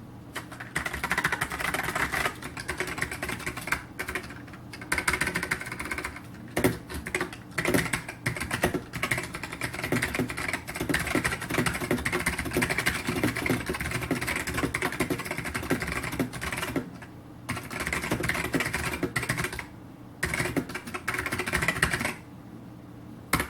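Typing on a SolidTek ASK-6600C mechanical keyboard with white ALPS switches: a fast, continuous run of keystrokes that breaks off briefly a few times.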